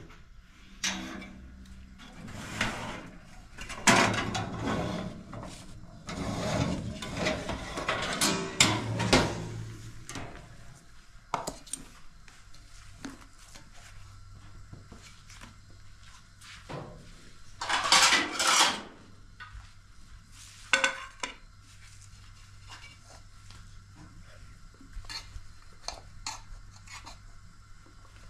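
Metal cake pan clattering and scraping as a baked cake is taken out of a small electric countertop oven, with a dense run of knocks over the first ten seconds. Later come a longer scrape, a sharp knock, and a few light taps as the pan and a plate are handled on a stone countertop.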